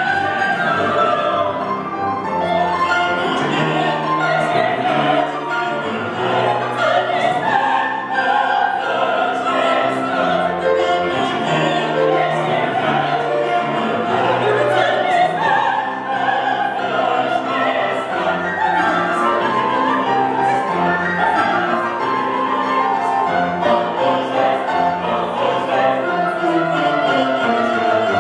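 Live operatic singing by costumed singers, accompanied on a grand piano, continuing without a break.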